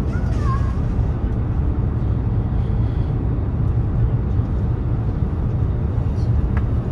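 Steady low rumble of a high-speed train running at speed, heard inside the passenger car.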